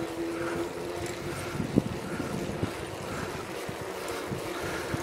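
Bicycle rolling along a bumpy, patched tarmac lane: wind on the microphone and tyre noise, with scattered knocks and rattles from the bike going over bumps, one sharper knock about two seconds in. A faint steady hum fades out in the first second or so.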